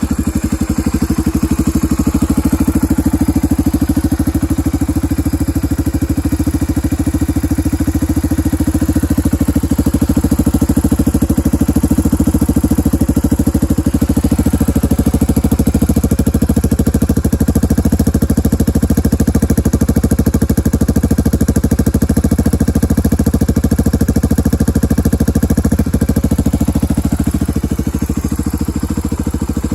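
Suzuki DR250S single-cylinder four-stroke engine idling steadily and loudly through a SuperTrap muffler whose glass-wool packing has been removed, fitted with a Super Quiet baffle and six discs.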